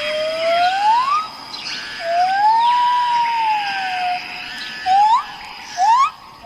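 A bird whistling in clear, pure notes that slide in pitch: a slow rising note, then a longer note that rises and falls, then two short quick upslurs near the end. Fainter chirps of other birds and a steady high-pitched tone sound behind it.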